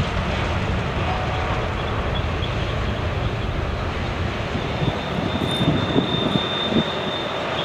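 Freight train cars rolling around a tight curve: a steady rumble of steel wheels on rail, with a thin high squeal from the wheel flanges on the curve from about halfway in and a few light knocks.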